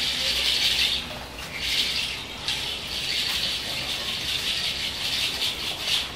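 Dry rustling and crackling that swells and fades in waves, from bare feet stirring dry leaves and a straw skirt swishing as a dancer spins and steps.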